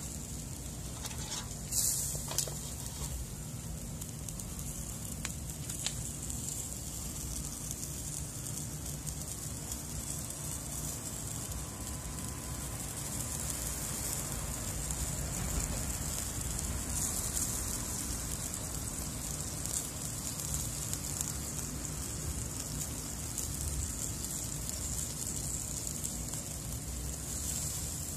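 Atlantic croaker in a wire grill basket sizzling over hot charcoal: a steady hiss with fine crackling as marinade and juices drip onto the coals. A couple of sharper clicks come about two seconds in.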